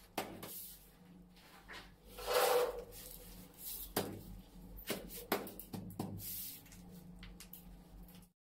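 A gloved hand pressing and sliding a ceramic wall tile into tile adhesive, rubbing against the wall, with several light knocks as the tile is tapped and set. Most of the knocks come in the second half.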